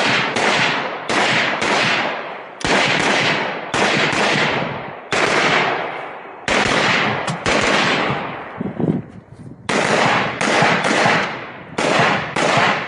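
AR-15 rifle firing rapidly, about eighteen shots, mostly in quick pairs about half a second apart, each shot trailing off in a long echo. The firing pauses briefly about eight seconds in, then resumes in pairs.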